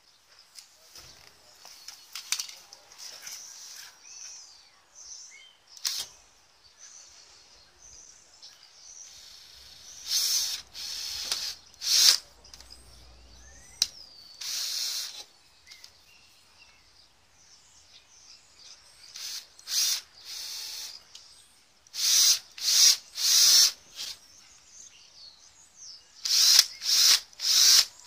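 Cordless drill drilling small screw holes through a motorhome's side wall, run in a string of short bursts with several in quick succession near the end.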